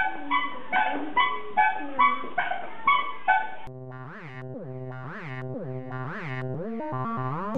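A child's electronic musical toy plays a tune of short beeping notes, about two a second. About three and a half seconds in, it cuts to background music with synthesizer tones sliding up and down.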